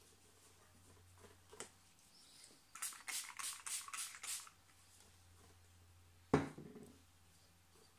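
Large paintbrush scrubbing with about six quick hissing strokes over a second and a half, then a single sharp knock with a short low ring.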